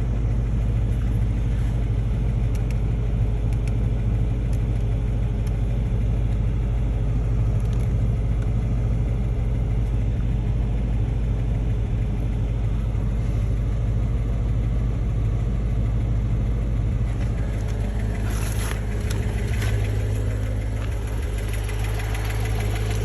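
Car engine idling steadily with a ticking from the valvetrain, which the owner takes for lifter tick.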